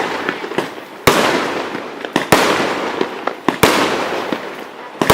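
Aerial fireworks exploding. There are three loud bangs about a second and a quarter apart, each dying away over about a second, with smaller sharp pops between them.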